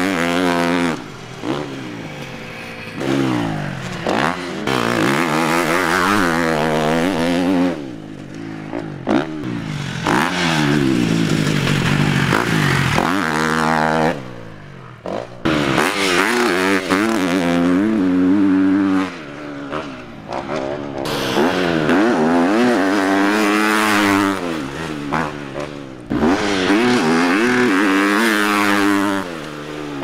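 GasGas MC 250F motocross bike's single-cylinder four-stroke engine being ridden hard, its pitch climbing and falling again and again as the throttle is opened and shut and gears are changed, with a few brief quieter lulls when the throttle is rolled off.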